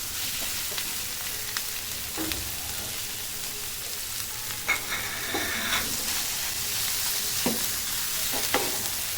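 Grated sweet pumpkin sizzling as it fries in hot ghee, with a spatula stirring and scraping the pan a few times.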